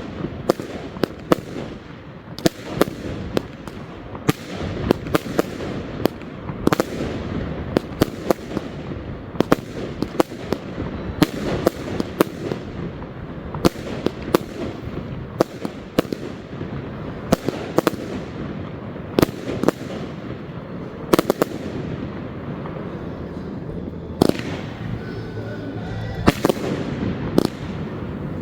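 Fireworks display: a rapid, continuous run of sharp bangs, about two a second, from fireworks bursting over a steady crackling haze.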